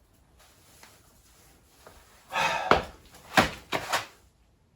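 Handling noises: a short rustle about two seconds in, then three quick sharp knocks.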